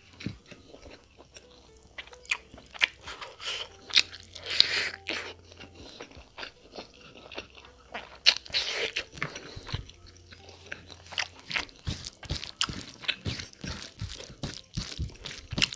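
Close-miked wet chewing and lip-smacking of a mouthful of mutton curry and rice eaten by hand, a quick run of clicks and smacks that grows busier toward the end. Two longer wet smacking sounds stand out about four and eight seconds in.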